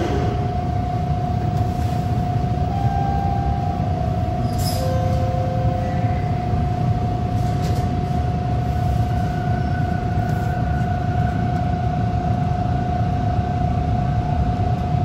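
TTC Bombardier T1 subway train heard from inside its lead car: a steady low rumble with one constant high-pitched hum, as the train sits at the platform and then pulls away into the tunnel near the end.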